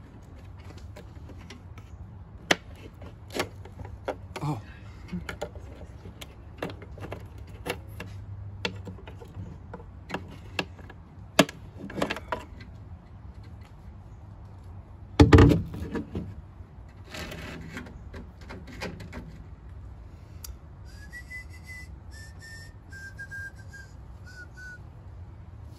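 Hands working on a truck's tail light wiring and fittings: scattered clicks and knocks of plastic and metal parts, with one loud thump about fifteen seconds in. Near the end, a short run of whistled notes stepping down in pitch.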